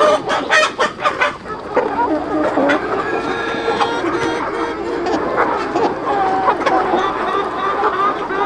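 A large flock of chickens clucking and calling over one another in a dense, continuous chatter, with a few sharp knocks in the first second or so.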